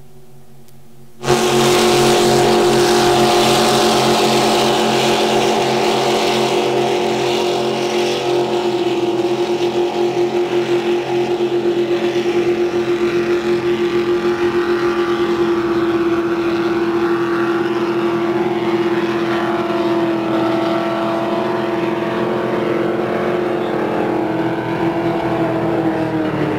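Racing boats' engines running at full throttle: a loud, steady drone with one strong note. It starts abruptly about a second in, and the note sinks slightly near the end.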